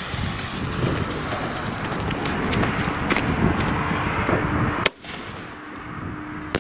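Fuse of a Weco Sky Shot single-shot firework hissing steadily as it burns down, then a sharp crack about five seconds in as the shot lifts off.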